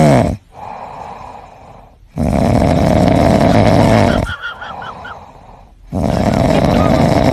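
Loud rasping snoring: three long snores of about two seconds each, roughly four seconds apart, with quieter breathing between them.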